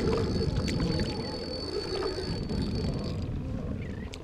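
Kayak paddle strokes splashing in shallow water, under a choppy low rumble of wind against the microphone. A faint steady high whine stops about three seconds in.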